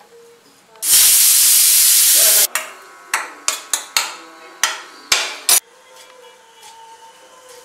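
Vegetables sizzling in hot oil in a steel pan: a loud, steady hiss for about a second and a half that cuts off abruptly, then a string of about eight short sizzling bursts as they are stirred with a spoon.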